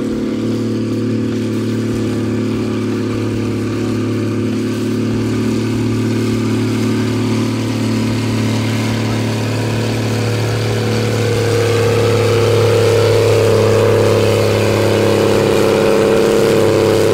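Case IH 1255 tractor's diesel engine running hard under full load as it drags a tractor-pulling sled, a steady heavy drone. About eleven seconds in the note rises a little and grows slightly louder.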